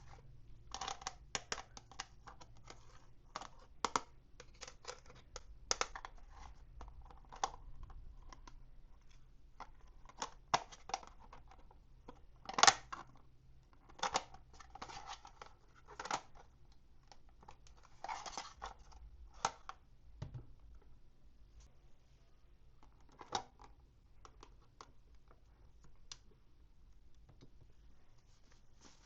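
Toy packaging being opened by hand: an irregular run of sharp clicks, crinkles and short tearing rustles of plastic and cardboard, with the loudest click near the middle.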